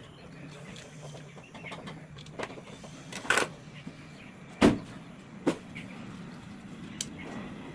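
A few separate sharp clicks and knocks, the loudest about halfway through, from a mosquito machine being handled and taken apart by hand.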